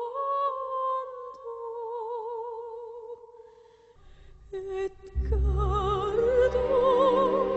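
Film score music: a slow, held melody line with a strong vibrato fades out about three to four seconds in. About five seconds in, a fuller passage starts with deep bass and a wavering melody.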